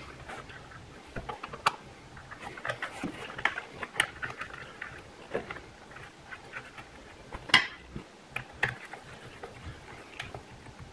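Scattered small metallic clicks and clinks as a battery cable's ring terminal and bolt are fitted by hand onto a battery's positive terminal, with the sharpest click about two-thirds of the way through. Near the end a screwdriver goes onto the terminal bolt.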